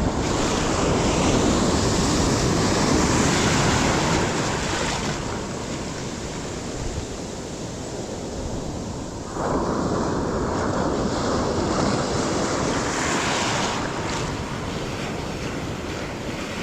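Ocean surf washing onto a beach, swelling and easing, with wind buffeting the microphone; the level jumps suddenly about nine seconds in.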